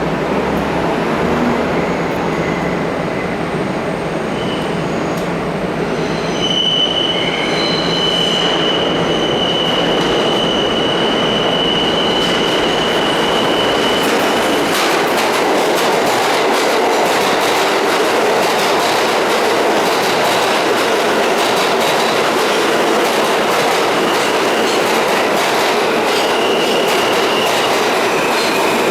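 New York City Subway R160 train pulling into the station: a steady rumble of wheels on rail, with a high steady wheel squeal from about a quarter of the way in that stops about halfway and comes back near the end, and rapid clicking over the rail joints in the second half.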